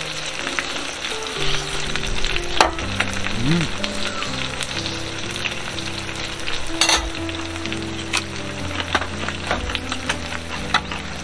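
Pork belly sizzling as it fries on a grill pan, a steady spitting hiss, with a couple of sharp clicks about two and a half and seven seconds in.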